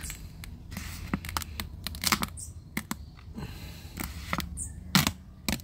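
A flexible black cover sheet being peeled up off the top of a wooden stingless-bee hive box, crackling and ticking irregularly as it pulls free of the box's sticky edges, with one louder snap near the end.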